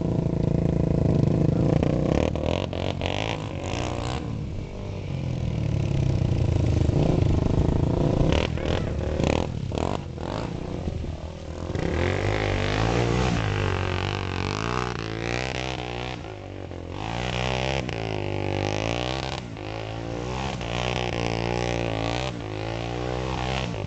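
Quad ATV engines revving while spinning donuts on a dirt and mud track. About halfway in, the engine pitch starts rising and falling over and over.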